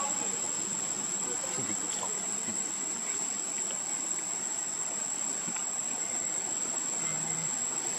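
Insects droning with one steady, unbroken high-pitched tone, over a low, even background murmur.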